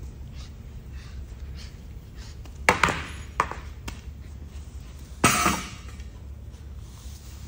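Push broom head knocking on a concrete floor: two sharp knocks less than a second apart, then a longer clatter about two seconds later, over a steady low hum.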